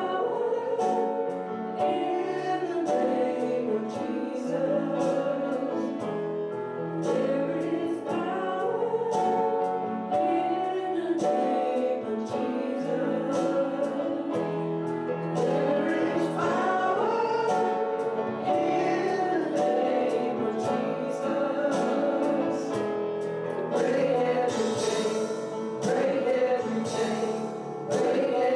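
A hymn sung by many voices together, with instrumental accompaniment, in slow held notes.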